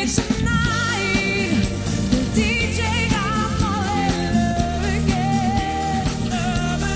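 Live band playing a pop-soul song: a woman sings lead with a wavering vibrato over bass, keyboard and a steady drum beat.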